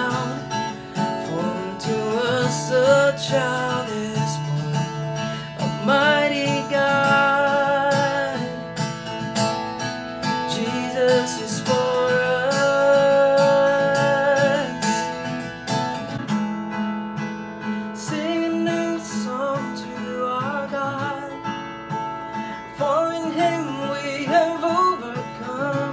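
A man singing a worship song while strumming an acoustic guitar, recorded raw through a Mickle MM-US300 USB condenser microphone. About two-thirds of the way through, the sound loses its brightness as the recording switches to the computer's built-in microphone.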